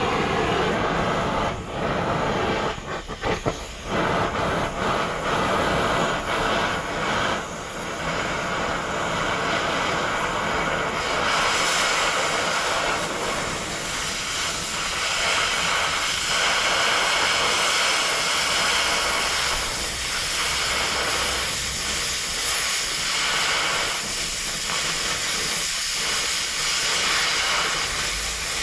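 Steel angle being cut to length with a power cutting tool: a loud, steady rushing noise with no clear pitch, after a few clicks and knocks in the first seconds.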